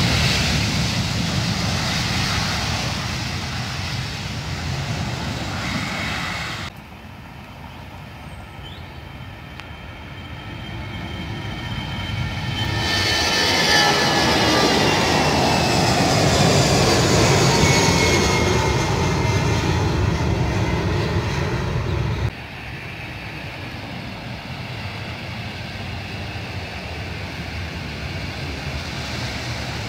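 Three jet airliners' engines at a runway, in three clips. First a Boeing 737's jet engines running on the runway. After a sudden cut, an Airbus A320-family jet's engines grow loud as it climbs away at takeoff power, with high whines falling slowly in pitch. After another sudden cut, quieter, steady jet noise from an Embraer jet on the runway.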